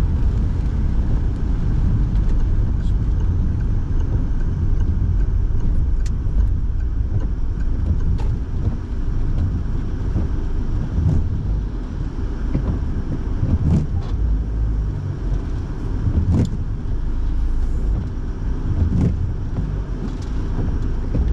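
Inside a car driving on wet roads: a steady low rumble of engine and tyres, with the heater fan blowing, and a short click every two to three seconds.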